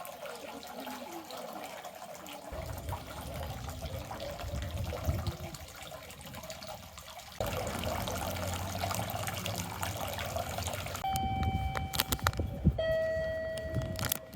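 Steady rush of running river water, with a low rumble joining a few seconds in. Near the end, two steady clear tones sound one after the other, with a few sharp clicks.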